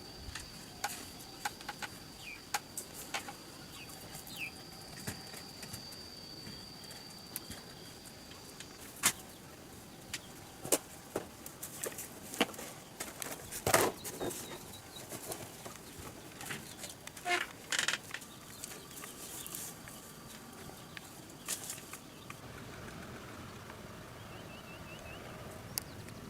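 Irregular sharp crackles and rustles, thickest in the middle stretch, over a steady high insect drone that stops about eight seconds in; a few short bird calls.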